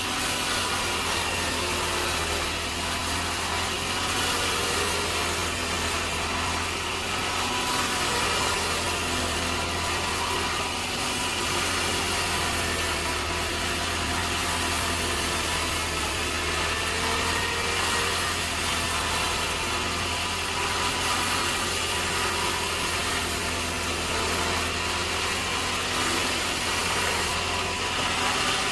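Sawmill machinery running steadily: an engine-like drone with a low hum and an even hiss above it, with no clear cuts or bangs.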